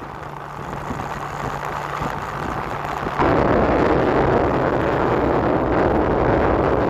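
Motor vehicle engine running under heavy wind rumble on the microphone, the noise stepping up sharply louder about three seconds in.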